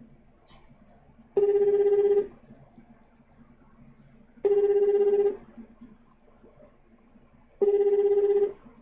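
Telephone ringback of an outgoing call: three short rings, each a steady tone with a fluttering pulse, about three seconds apart.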